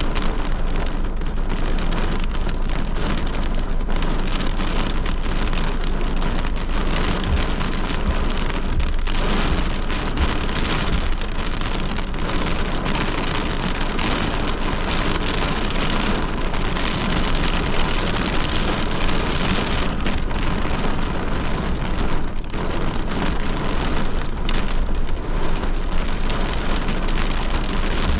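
Heavy rain pouring steadily in a severe thunderstorm, a dense unbroken patter of drops hitting a surface.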